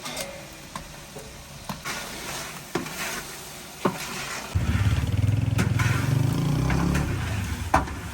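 Lamb sizzling as it fries in a pot, with a few sharp knocks of a utensil against the pot. A bit past halfway a loud, low rumble starts and runs until just before the end.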